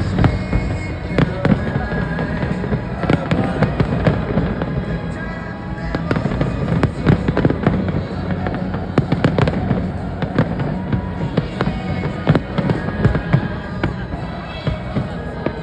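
Fireworks going off in a dense, irregular run of sharp bangs and crackles, over loud music with a steady bass.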